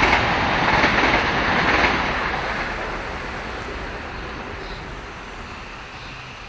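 Garden hose spraying water onto grass: a steady rushing hiss that is loud for the first two seconds, then fades gradually.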